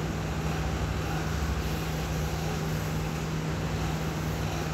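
Steady low hum with an even hiss throughout, with no distinct events.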